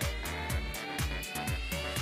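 Background music with a steady kick-drum beat about twice a second, under a high tone that slowly rises in pitch.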